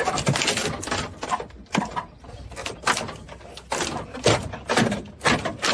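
Irregular knocks and thuds, several over a few seconds, with clattering between them.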